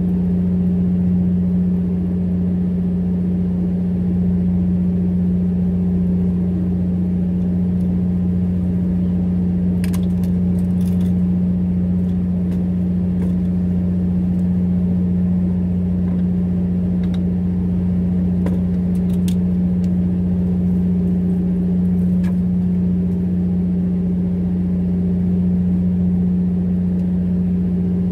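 Fishing boat's engine running with a steady, loud low hum. A few light clicks from the electric fishing reel's parts being handled, about ten seconds in and again a few times later.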